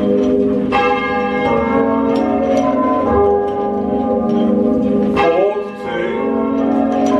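A ring of six church bells rung full-circle in steady rows, fully muffled with the tenor's backstroke left open, as rung for a death in memoriam. It is heard from the ringing chamber below the bells.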